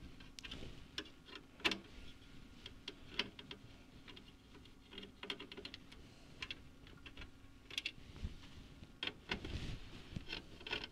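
Faint, irregular small clicks and ticks of a hand screwdriver loosening screws in the plastic cover of a variable speed drive, with hands handling the cover panel.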